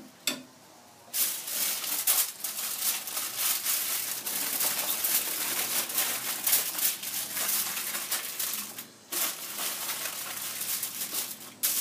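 Aluminium foil crinkling and crumpling as it is folded by hand around a rack of baby back ribs, starting about a second in, with one short pause a little before the end.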